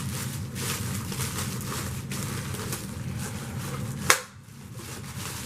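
Hands handling a plastic vacuum dirt canister and its packaging, with soft rustling and scraping, then one sharp plastic click about four seconds in.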